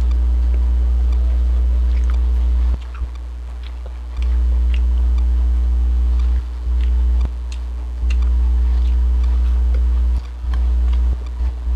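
Loud, steady low electrical hum in the recording that drops in level a few times and flickers on and off near the end, over faint chewing and small clicks of eating fried vegetable lumpia by hand.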